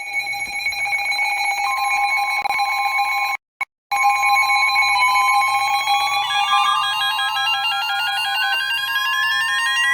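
Several emergency alert receivers sounding their alert tones at once: steady alert tones, joined about five seconds in by a siren tone that rises steadily in pitch and about six seconds in by a fast pulsing beep pattern. The sound drops out briefly near the middle.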